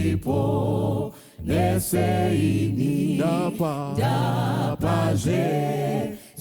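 A group of voices singing a hymn in Shona with no instruments, in long held phrases with short breaks between them.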